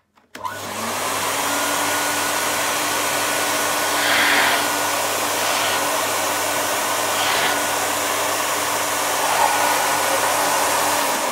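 Nilfisk GS80 canister vacuum cleaner switched on with a click, its motor spinning up with a rising whine over about a second, then running steadily with a hum and rushing air. Near the end the whine begins to fall as the motor winds down.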